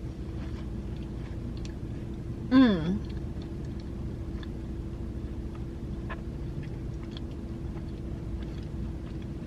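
A person chewing a mouthful of strawberry and creme pie, with faint wet mouth clicks, and a short hummed "mm" of enjoyment falling in pitch about two and a half seconds in. A steady low hum runs underneath.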